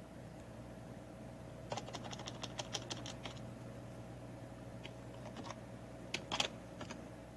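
Typing on a computer keyboard: a quick run of keystrokes about two seconds in, then a few scattered clicks later, over a steady faint hum.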